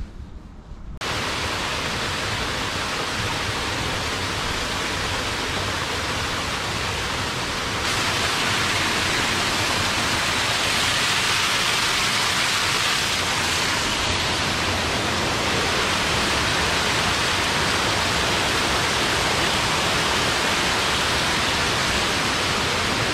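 Rushing water from a small waterfall and a stream cascading over rocks: a steady, loud splashing rush that starts suddenly about a second in and gets louder about eight seconds in.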